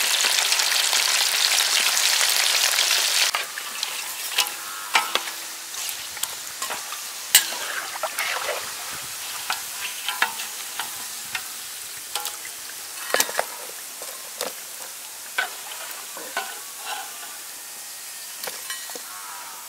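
Water snake pieces on bamboo skewers deep-frying in hot oil, a loud dense sizzle that drops off abruptly about three seconds in. After that a quieter sizzle goes on, broken by scattered clacks and scrapes of a metal ladle and the skewers against the pan as the fried snake is lifted out and stirred.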